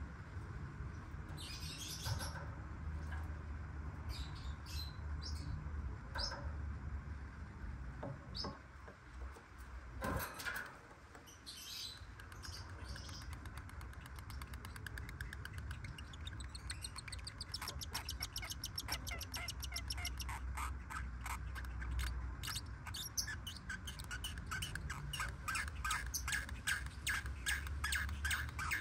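Black-winged lovebirds calling: scattered sharp chirps and squawks, then from about halfway in a fast run of chattering chirps, many a second, growing denser toward the end.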